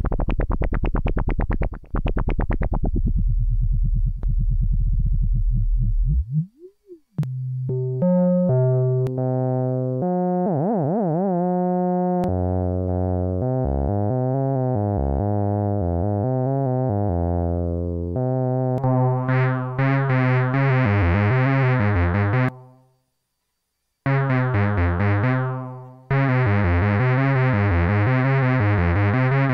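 Moog Werkstatt-01 monophonic analog synthesizer played from a keyboard: at first a buzzy low tone with a fluttering, swept filter, then a line of changing bass notes whose tone grows brighter as the filter opens. Past the middle it cuts off for about a second, comes back with a falling sweep, and the bass notes go on.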